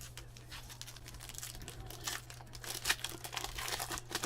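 Trading cards and their wrapper packaging being handled, crinkling in quick crackly bursts that get busier about halfway through, over a steady low electrical hum.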